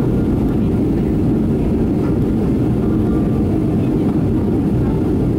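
Jet airliner cabin noise during the climb after takeoff: engines at climb thrust and rushing air, a steady, even low rumble.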